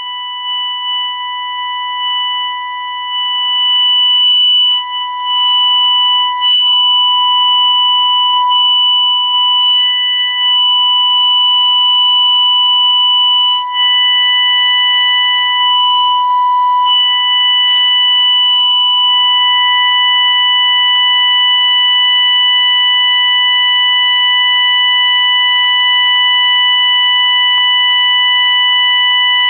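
Fire alarm sounder blaring one continuous, piercing high-pitched tone without a break, getting louder about four seconds in.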